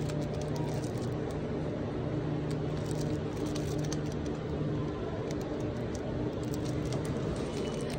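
Steady low hum of a running vehicle, one even droning tone with faint scattered ticks over it.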